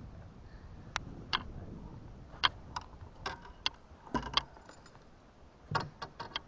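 Fishing gear being handled in a small boat: about a dozen sharp, light metallic clicks and clinks at uneven intervals, bunched together a little past four seconds in and again near six seconds.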